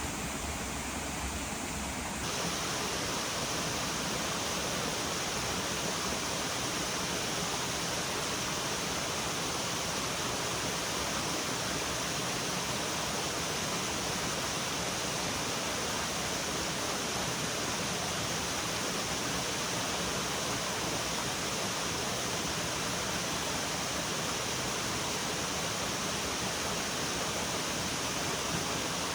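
Steady rushing of flowing water, which becomes louder and brighter about two seconds in and then holds even.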